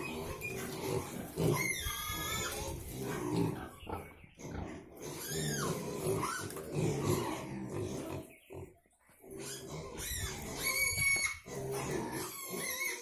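Pigs grunting, with a few higher-pitched calls and a brief lull about eight seconds in.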